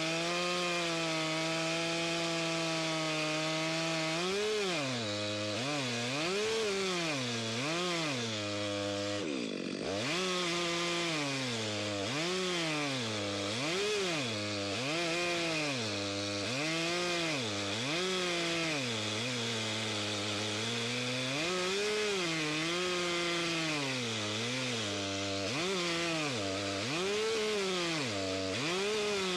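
Stihl MS462 C two-stroke chainsaw with a 36-inch bar, running at full throttle in an Alaskan chainsaw mill and ripping lengthwise through a 34-inch oak log. The engine note holds steady for about four seconds, then rises and falls roughly once a second as the saw is fed through the cut. It drops sharply and briefly just before ten seconds.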